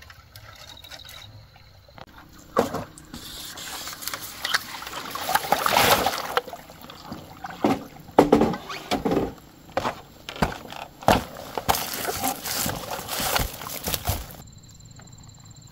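Water splashing and sloshing irregularly, mixed with scattered knocks and clatter. It begins a few seconds in and stops abruptly near the end.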